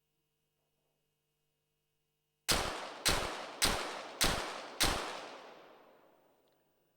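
A .22 Short rapid fire pistol firing a five-shot series: five sharp shots about 0.6 s apart, starting about two and a half seconds in, each echoing, the last echo fading over about two seconds.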